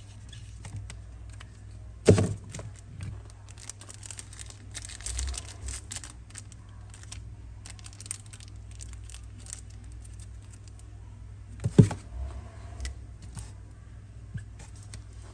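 Clicks, taps and rustling of a metal Zippo lighter being handled, with two louder knocks, one about two seconds in and one near the end.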